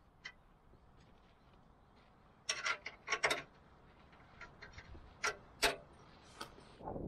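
Metal hand tools clicking and clinking against a car part: a quick cluster of sharp clicks a few seconds in, then single clicks spaced about half a second apart.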